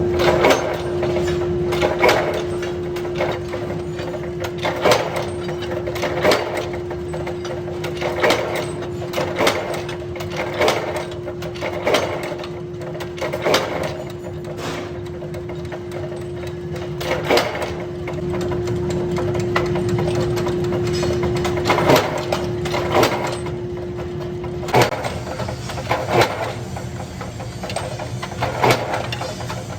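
Forging-shop machinery: a steady machine hum with sharp metal knocks and clanks recurring about every one to two seconds, as hot iron is worked by the machines. The hum cuts off near the end while the knocks go on.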